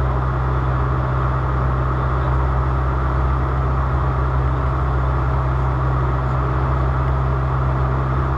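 Steady, unchanging engine drone with a strong low hum.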